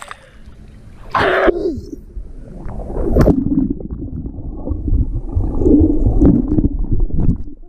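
Muffled underwater rumbling and gurgling of lake water, heard through a camera microphone held under the surface, with a brief loud burst about a second in as it goes under.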